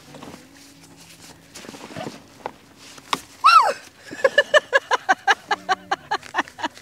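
A short loud cry that rises and then falls in pitch, followed by a couple of seconds of hearty laughter in quick rhythmic bursts. Before it, soft rustling and handling of outdoor gear.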